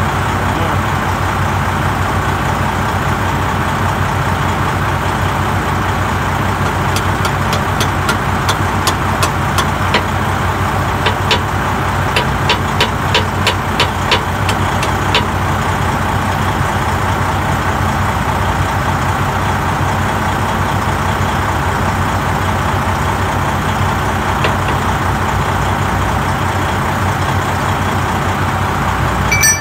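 Steady idling engine drone. About seven to fifteen seconds in come some twenty light, sharp metal taps, a hammer tapping at a truck's lower shock mount bracket.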